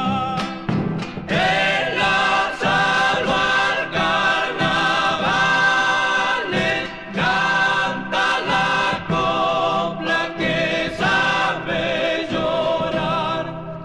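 Argentine folk vocal group singing in several-part harmony, with long held notes.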